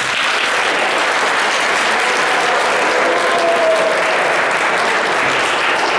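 A large audience applauding, steady clapping from many hands.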